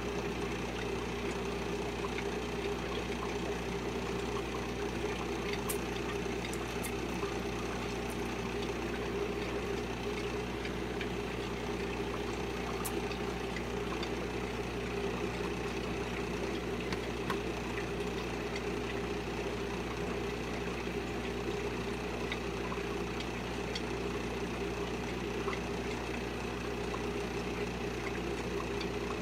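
Steady mechanical hum of running aquarium equipment, with a constant drone that never changes, and a few faint high ticks.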